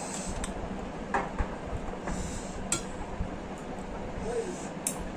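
Close-up eating sounds from a mukbang of spicy instant noodles: a few short slurps and mouth noises, with several light clicks of utensils against the dish, over a steady low hum.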